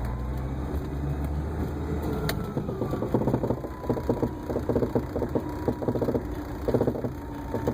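1980 Mercedes-Benz 300SD's five-cylinder diesel engine running as the car backs up, with a rapid clicking from the front passenger wheel well that comes in bursts starting about three seconds in. A single sharp click comes just before the bursts.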